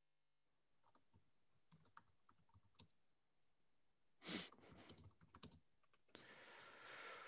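Faint computer keyboard typing in scattered clicks, with a short louder burst about four seconds in and a long breath near the end.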